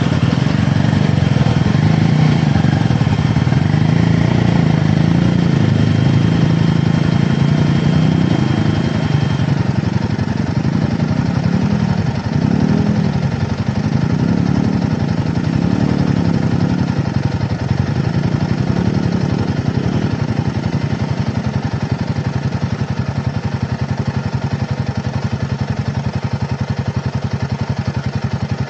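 Single-cylinder adventure motorcycle engine running at low speed, its pitch rising and falling several times around the middle as the throttle is worked. A faint steady whine sits over it for roughly the first third.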